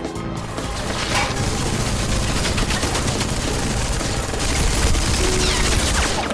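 Rapid automatic rifle fire, a dense fusillade of shots that runs for about five seconds and stops just before the end.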